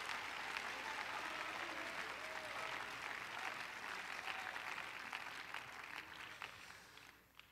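Congregation applauding, a dense patter of clapping that fades and dies away near the end.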